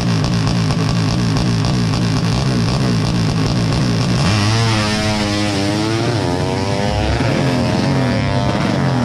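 A 200cc four-stroke 'sleep engine' (horizontal-cylinder) underbone drag bike's engine running on the start line, then launching about four seconds in. The pitch climbs, drops at a gear change and climbs again as it accelerates away down the strip.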